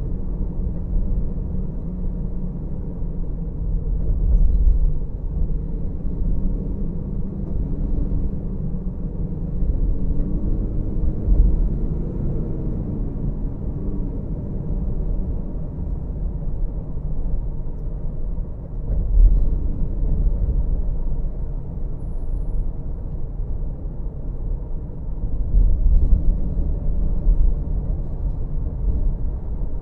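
Low, steady rumble of a car driving slowly: engine and tyre noise. A faint engine note rises and falls about a third of the way in, and the rumble swells briefly a few times.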